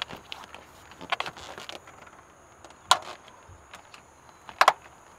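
Several sharp clicks and taps as a homemade shade panel is pressed into a car's side-window frame, its magnets snapping onto the metal door frame; the loudest clicks come about three and four and a half seconds in.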